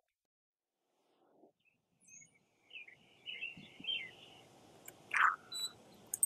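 Small birds chirping outdoors over a faint background hum, after about two seconds of near silence. A louder short sound stands out about five seconds in.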